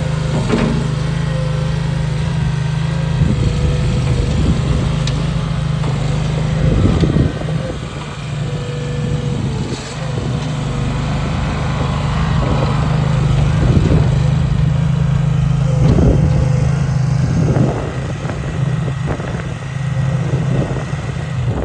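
Gravely Skidsteer 200 stand-up compact skid loader's small engine running steadily, with a few short knocks and brief dips in level along the way.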